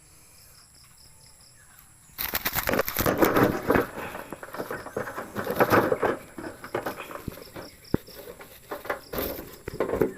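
Crickets chirping in a steady pulse, then from about two seconds in a captured dove flapping its wings hard in irregular, noisy bursts as it struggles.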